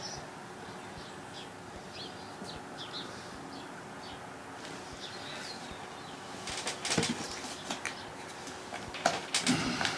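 Birds chirping faintly over a steady background, then from about six and a half seconds in a run of sharp clicks and knocks from handling the chainsaw's chain-oil bottle and filler cap.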